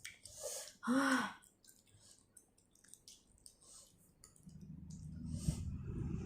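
A person blowing out a breath and giving a short voiced sigh about a second in, reacting to the burn of very spicy food, with small mouth clicks from eating. A low rumble builds near the end.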